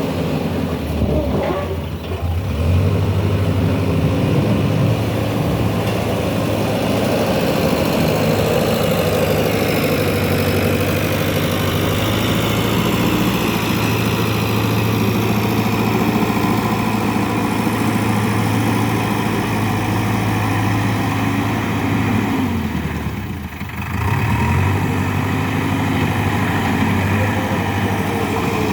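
JCB 3DX backhoe loader's diesel engine running under working load. The engine note drops briefly about two seconds in and again later, then picks back up as the machine works.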